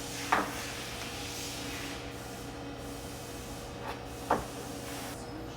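Steady hum and hiss of a work space, broken by two sharp clacks about four seconds apart, the second preceded by a softer tap.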